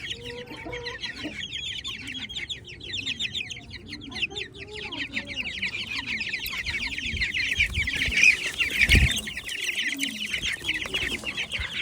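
Ayam Cemani chickens giving repeated low clucks over the continuous rapid chatter of a flock of small birds chirping. A brief low thump comes about nine seconds in.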